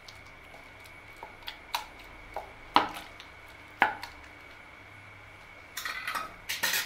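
Hand masher pressing boiled pumpkin in a plastic bowl: soft knocks against the bowl's bottom, the two loudest about three and four seconds in, then a brief clatter near the end as the masher is lifted out.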